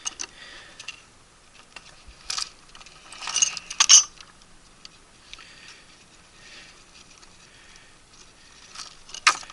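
Small metal parts and hand tools clinking and rattling as they are handled: a few scattered clicks, with the loudest bursts of rattling about two to four seconds in and again near the end.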